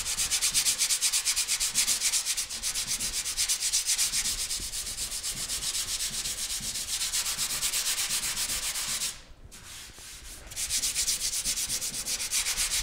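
Sandpaper held flat under the hand, sanding primer over body filler on a car body panel in quick back-and-forth, crisscrossing strokes. The strokes stop for about a second and a half around nine seconds in, then start again.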